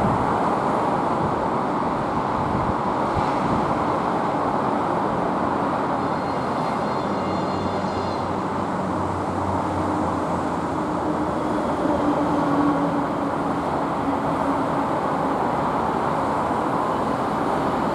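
2TE25KM twin-section diesel-electric freight locomotive approaching with a freight train: the diesel engines running and the wheels rolling on the rails in a steady rumble, with a faint high whine briefly about six to eight seconds in.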